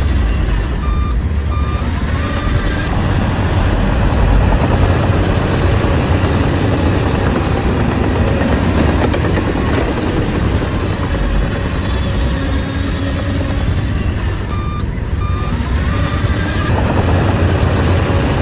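Bulldozer's diesel engine running steadily. A reversing alarm gives a few short beeps about a second in and again near 15 seconds in.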